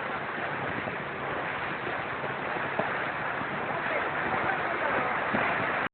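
Steady rushing of floodwater recorded on a low-quality phone, an even noise with no pauses and a few faint knocks.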